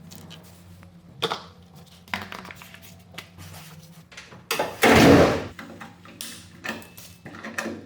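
Scattered clicks and knocks over a faint low hum, with one loud rushing burst lasting about a second, about five seconds in.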